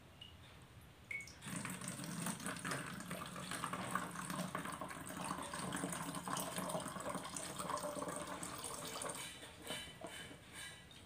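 Water poured from a plastic cup through a plastic funnel into a plastic bottle, running for about eight seconds from a second and a half in.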